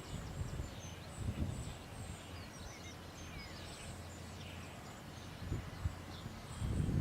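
Small birds singing: many short high chirps and whistled glides, over a low uneven rumble that grows louder near the end.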